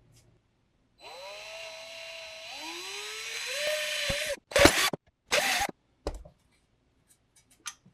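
Power drill boring a hole through the sheet-metal front engine tin of an air-cooled VW engine: the motor whines for about three seconds with its pitch rising, then two short bursts of drilling follow.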